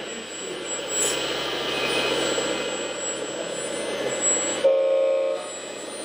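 Steady whirring machine noise from radio-controlled model trucks and construction machines, with a short pitched tone lasting under a second about five seconds in.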